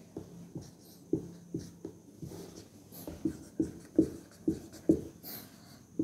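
Felt-tip marker squeaking and tapping on a whiteboard as a curve and short labels are drawn, in quick short strokes about two a second that grow louder and more regular in the second half.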